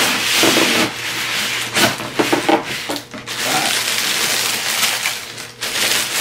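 Crinkled wrapping paper rustling and crackling in uneven surges as it is lifted out of a cardboard shoebox and unfolded by hand.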